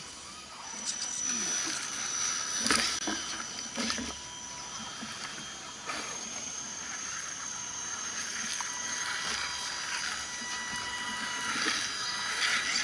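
Electric motors and geared drivetrains of RC scale crawler trucks whining steadily as they creep over tree roots, with a few sharp knocks of tyres and chassis against the roots about three, four and six seconds in.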